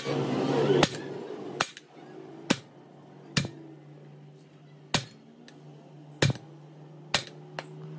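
Hammer striking metal in a truck axle repair: about seven sharp blows spaced roughly a second apart, over a steady low hum.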